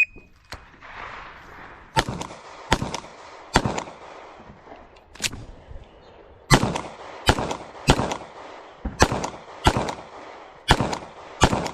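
Shot timer beeps once at the start. Then about eleven shots from a Bul SAS II Ur F Open-division pistol follow in an uneven string, several of them quick pairs with pauses between, as the shooter moves from target to target.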